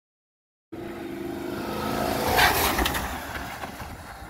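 Mitsubishi Delica L400 van with a swapped-in Toyota/Lexus 1UZ-FE VVTi V8 driving past with its exhaust fitted, super quiet. The sound cuts in under a second in, builds to a peak about two and a half seconds in as the van passes, then fades as it moves away.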